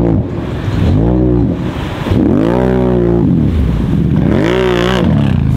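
Off-road vehicle engine revved up and down repeatedly, three full rises and falls in pitch each lasting about a second, with the tail of a fourth fading at the start.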